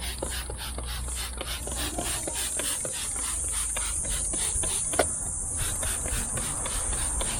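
Crickets chirping in a steady high trill, with rhythmic rasping strokes about five a second and one sharp click about five seconds in.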